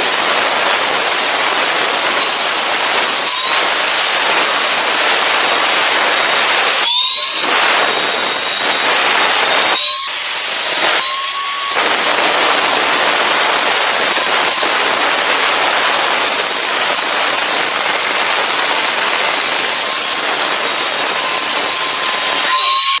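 Electric welding arc on square steel tube, a steady loud crackling hiss. It stops and restarts briefly three times, about a third of the way in and twice near the middle, as the weld is broken and struck again.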